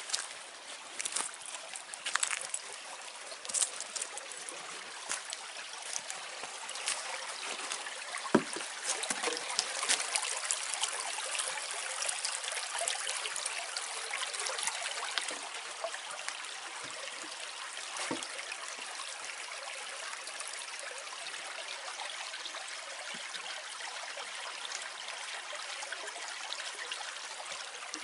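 Small woodland creek trickling and running steadily over a log and debris. Footsteps crunch on dry leaf litter as short clicks through roughly the first ten seconds.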